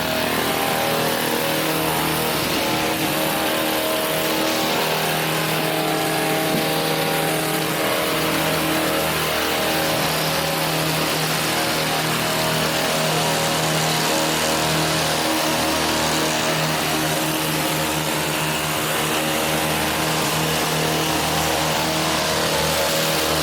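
Gas-powered hedge trimmer running at a steady high speed while cutting a cedar hedge.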